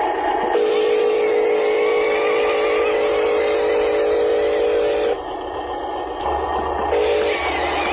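Cartoon construction-vehicle engine sound effect: a steady buzzing hum that runs for about four and a half seconds, stops, then returns in short spurts near the end.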